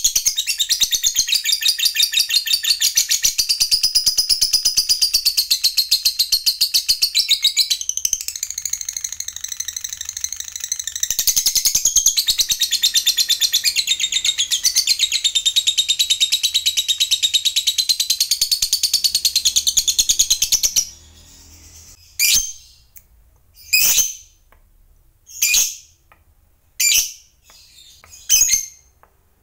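Fischer's lovebird giving a long, unbroken, rapid high chattering trill, the long 'ngekek' prized by lovebird keepers, for about twenty seconds. It then breaks off into single short sharp calls about a second and a half apart.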